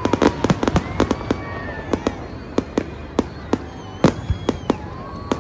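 Aerial fireworks display: a rapid, irregular series of bangs and crackles from bursting shells, dense at first and thinning to scattered pops after the first second or so.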